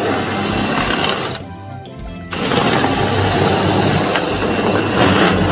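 Loud, steady mechanical noise, like a power tool or machine running, that drops away for about a second before the middle and then resumes.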